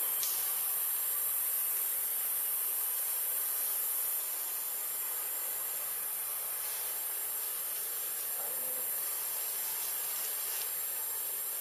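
Steady high-pitched drone of an insect chorus, dropping a little in level about four seconds in.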